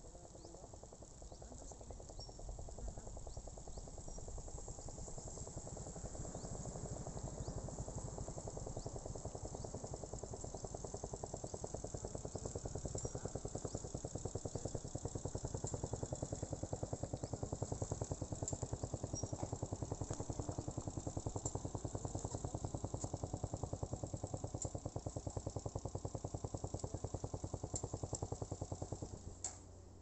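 A motor vehicle's engine running with a fast, even pulse, growing louder over the first several seconds, then steady, and cutting off abruptly near the end.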